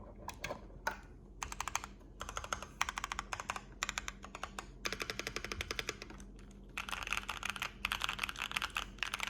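Keychron Q3 mechanical keyboard with lubed Boba U4T tactile switches, a tape- and force-break-modded case and double-shot PBT keycaps being typed on. A few single key presses come first, then quick runs of keystrokes with short pauses between them.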